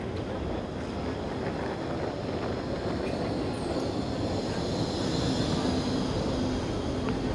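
A tram rolling along street tracks: a steady rumble that slowly grows louder, with a faint high-pitched wheel squeal and a low hum coming in about halfway through.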